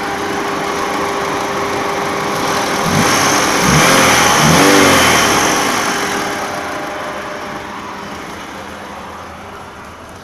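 Mitsubishi Galant's 2.0-litre DOHC engine running, revved once about three seconds in: the pitch rises and then slowly falls back to idle.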